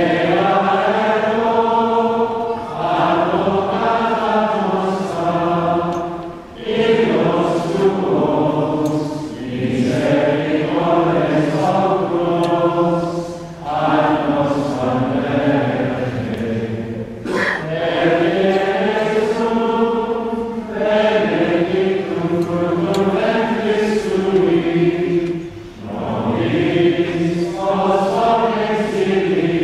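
A group of voices singing a slow liturgical chant together in long phrases of several seconds, with short breaks between phrases.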